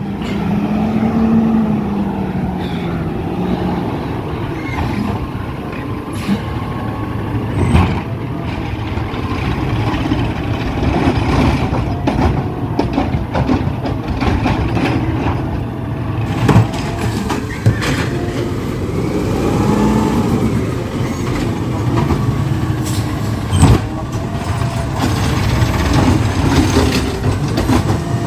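Garbage truck's engine running loud and steady, with several sharp metallic knocks and bangs scattered through.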